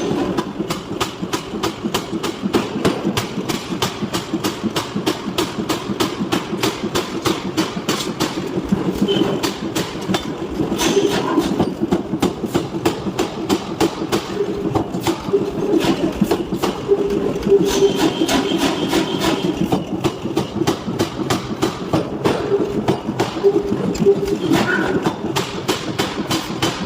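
Mechanical forging hammer pounding in a fast, even rhythm of several strikes a second over a steady machine hum.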